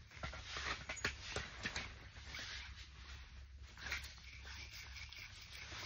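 Rustling and small clicks of fishing tackle and clothing being handled close up, with scattered sharp taps, over a steady low hum.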